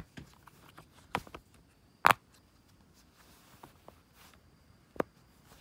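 Silicone pop-it fidget toy being pressed: a handful of separate sharp pops, the loudest about two seconds in.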